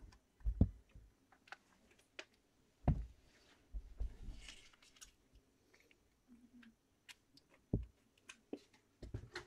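Scattered small clicks and a few soft low thumps, the handling noise of lighting gear being adjusted.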